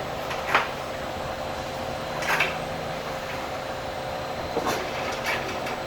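Carousel drive chain clinking a few times as it is fed by hand toward the sprocket, over a steady mechanical hum.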